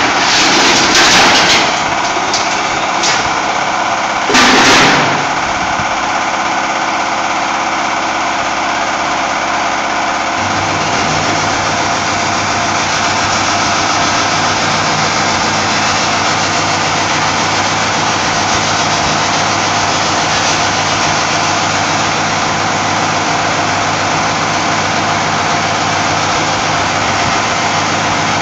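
Resistance seam welding machine running with a steady mechanical noise, with a short loud burst about four seconds in. About ten seconds in, a steady low electrical hum sets in and holds as the machine's wheel electrodes weld the seam of a sheet-metal tank.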